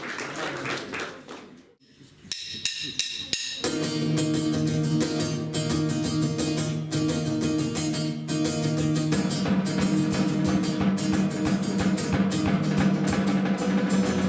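A few clicks and plucked notes, then a guitar and drum kit start playing a song together about three and a half seconds in, the drums keeping a steady beat under held chords.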